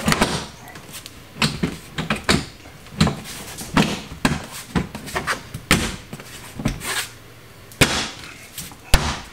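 Plastic trim clips of a Tesla Model 3 trunk lid liner snapping into the lid as the panel is pressed back on by hand: a long, irregular series of sharp clicks and knocks, about two a second.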